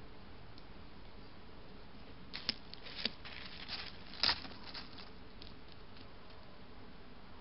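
A deer moving over dry leaf litter and twigs: a run of crackles and snaps lasting about two seconds in the middle, the loudest snap just past halfway, over a steady hiss.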